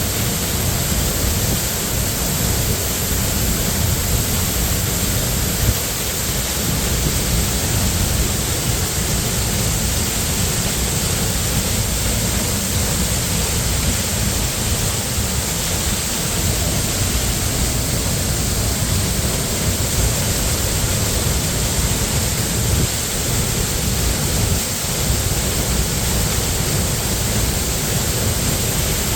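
Water of Minnehaha Creek and its falls rushing steadily, a constant full hiss with a deep rumble beneath it that does not change.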